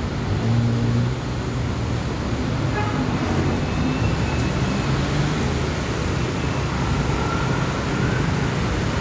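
Steady road traffic noise, with the engine hum of passing vehicles rising and falling.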